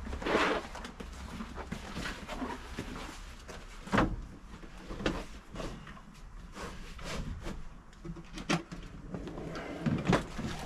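Scattered knocks, clicks and clunks of gear being handled and moved about inside a tradesman's van, the loudest knock about four seconds in.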